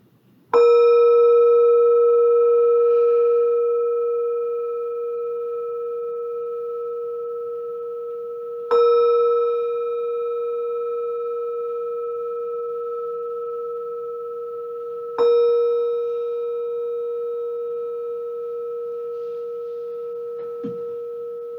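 Meditation bell struck three times, about eight and six seconds apart. Each strike rings on with several steady tones and fades slowly, the next strike coming before the last has died away. The bell marks the close of the meditation.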